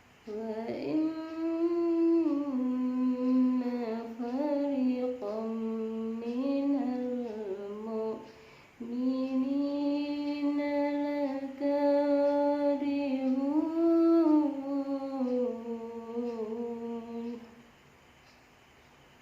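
A solo voice chanting Qur'an recitation in melodic qiro'ah style, drawing out long ornamented vowels in two phrases with a short breath about eight seconds in. The voice is hoarse from a cough and cold.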